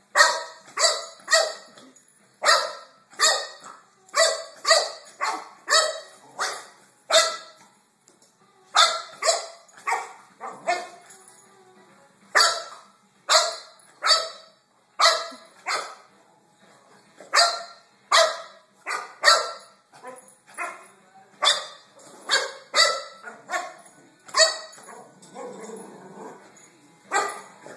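Boxer dog barking over and over in short, loud barks, often two or three a second with a few brief pauses: excited play barking at a moving toy.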